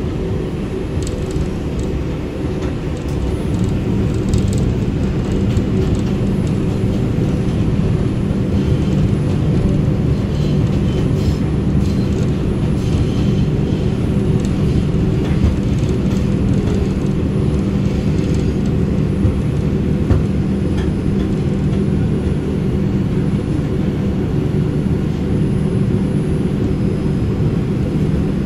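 Moving subway train heard from inside the car: a steady rumble of wheels on rails with motor hum, getting a little louder about three seconds in, with faint scattered clicks and rattles.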